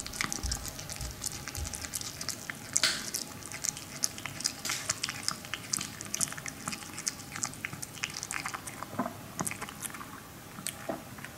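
Maltese dog chewing a dried pig-ear slice: a fast, irregular run of small crunches and clicks, several a second, thinning out near the end.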